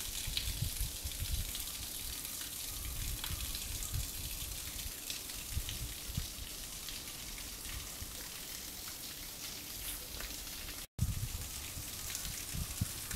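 Outdoor ambience: a steady crackling hiss with irregular low gusts of wind rumbling on the microphone. The sound drops out for an instant near the end.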